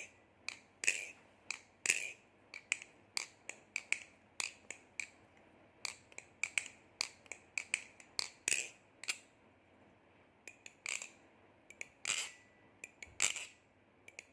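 Baliplus Kraken 2.5 balisong trainer being flipped: irregular sharp metal clacks as the handles swing round and strike, in quick runs with a short pause partway through. Some strikes leave a little ringing 'ting'.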